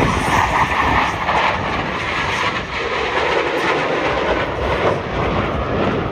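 Loud jet noise from a Blue Angels F/A-18 passing overhead. It is a dense rushing rumble whose main pitch drops lower about halfway through as the jet goes by.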